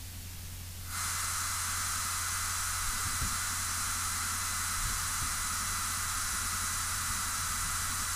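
Steady radio static from the aircraft's air-band radio feed: a hiss comes up abruptly about a second in and holds over a low steady hum, the channel open with no voice on it.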